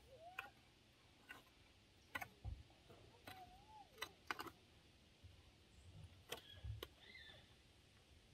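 Near silence with scattered faint clicks and taps as the hide-stretching frame and its lacing are handled, and a couple of faint chirping notes.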